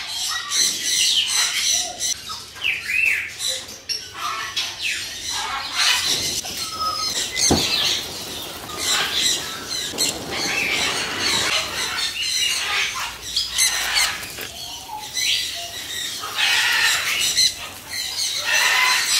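Birds squawking and chirping in many short calls throughout. Water from a garden hose splashes on leaves in the middle.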